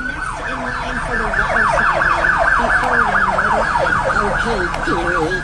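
Police car siren in its fast yelp mode, about five quick pitch sweeps a second. Near the end it drops back into a slow falling wail.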